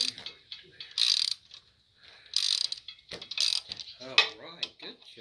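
Hand socket ratchet on a swivel extension clicking in short strokes, about one a second, as the adapter-plate bolts on an engine block are tightened.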